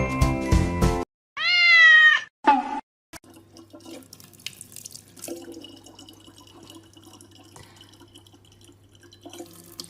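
A short music jingle cuts off about a second in. A cat then gives one loud meow about a second long, followed by a brief second call. After that there is only a faint steady hum with small clicks.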